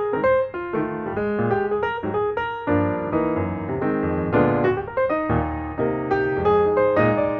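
Background piano music, with quick notes struck in a rapid flowing run.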